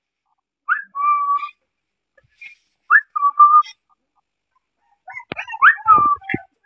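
Puppy whining: three bouts of thin, high cries, each a short rising note followed by a held one. A couple of sharp knocks come with the last bout.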